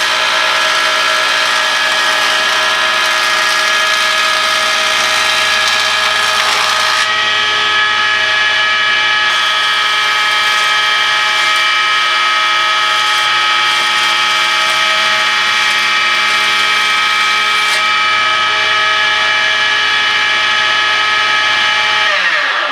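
Electric jointer planing pallet boards: a loud, steady machine whine that starts suddenly and winds down in pitch near the end.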